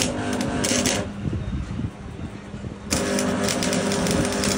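Tractor engine running steadily. Its even hum fades into a rougher, lower sound about a second in and comes back about three seconds in.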